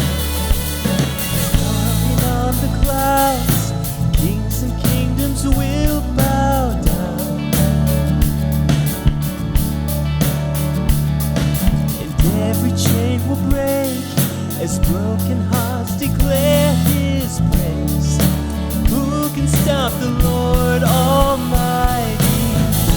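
Contemporary worship song played by a band, with a steady drum beat, sustained bass and keyboard chords, and a voice singing the melody.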